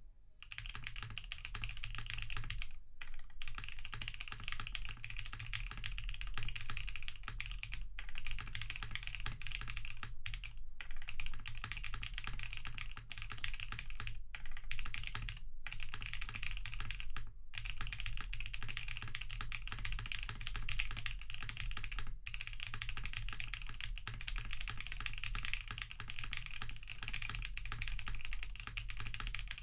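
Fast continuous typing on a Cruelworld CW60 custom mechanical keyboard with Hoshizora switches lubed with Krytox 205g0 and Owlab stabilizers, the keystrokes running together with a few brief pauses.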